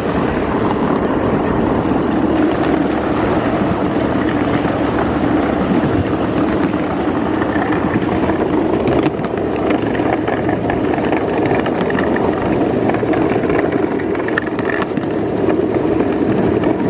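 Steady rolling rumble of a ride-on miniature train's cars running along the track, heard from aboard, with scattered short clicks in the second half.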